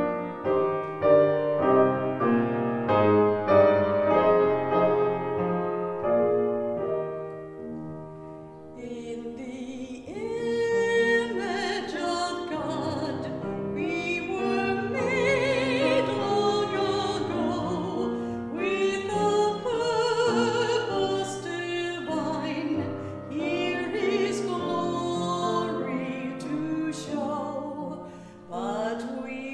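Solo grand piano playing an introduction, then a woman's singing voice with strong vibrato entering about ten seconds in, in a classical style over the piano accompaniment.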